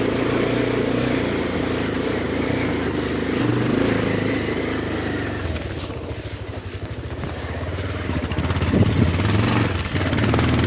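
Motorcycle engine running at low, steady revs over a rough gravel track, easing off about halfway through and picking up again near the end.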